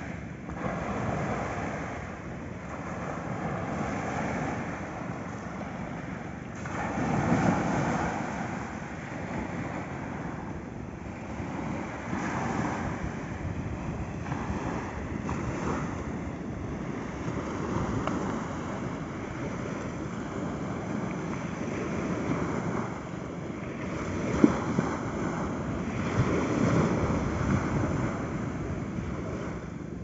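Small sea waves breaking and washing up a sandy beach, the surf swelling and easing every few seconds, with wind on the microphone. A single brief sharp click about two-thirds of the way through.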